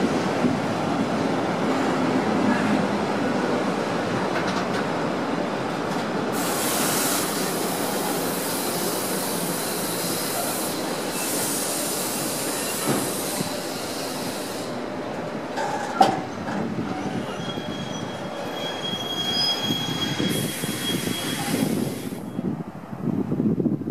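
A freight train of empty intermodal container flat wagons rolling slowly past as it arrives, wheels rumbling on the track. There are stretches of high wheel screech and thin squealing tones, and one sharp clank about two-thirds of the way through.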